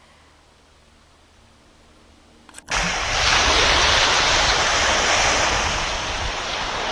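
Faint hiss, then a sudden cut about two and a half seconds in to loud, steady rushing water from a river, heard through the camcorder's microphone.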